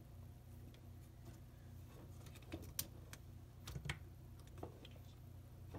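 Faint scattered clicks and taps of hands handling a wooden popsicle-stick car frame and a mousetrap on a tabletop, with a few sharper clicks around the middle, over a low steady hum.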